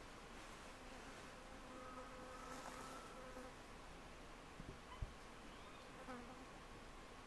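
Faint buzzing hum of a flying insect, wavering slightly in pitch, with a single short thump about five seconds in.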